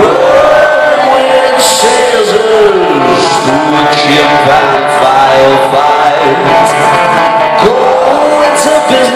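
Rock band playing live in an arena, loud: electric guitar and drums, with a male voice singing.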